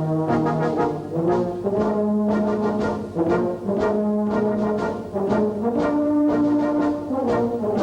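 Music played on brass instruments: several held notes sounding together as chords, moving to new notes every second or so.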